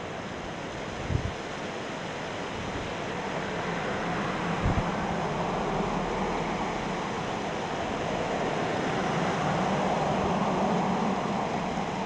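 Pickup truck driving slowly past on a paved road: a swelling rush of engine and tyre noise that builds through the middle and peaks near the end, over wind on the microphone. Two low thumps come early on.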